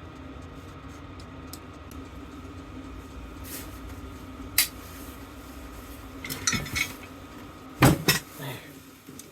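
Metal scrap parts from a dismantled fire bell clinking and clanking as they are handled and dropped: a sharp clink about halfway in, a short rattle, then two loud clanks close together near the end, over a steady low hum.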